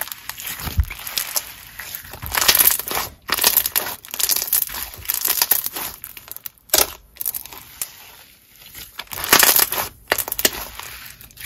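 Thick, clear-based slime with jelly cubes in it being squished, stretched and pressed by hand: sticky squelching and popping that comes in irregular bursts, loudest about two and a half, seven and nine and a half seconds in.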